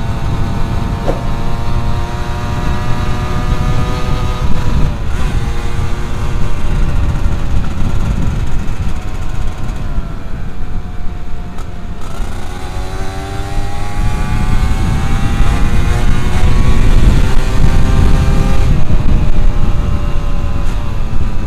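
Yamaha F1ZR's 110cc two-stroke single running on the move through a hollowed-out stock exhaust, its note climbing and dropping back a few times with the throttle, over low wind rumble on the microphone.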